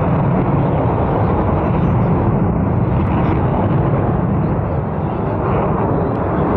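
Sukhoi Su-30 MKI fighter's twin AL-31FP turbofan engines in flight overhead: a loud, steady rushing jet noise that eases slightly about five seconds in.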